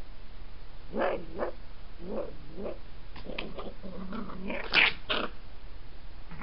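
Red foxes squabbling with each other: a run of short, pitched calls that bend in pitch, starting about a second in, with the loudest, shrill call near five seconds.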